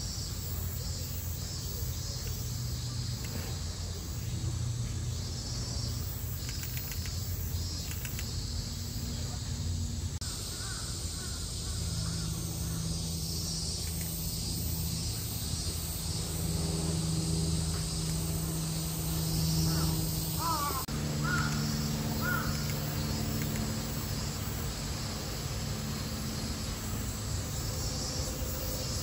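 Crows cawing several times, mostly in the second half, over a steady high-pitched hiss and a low hum.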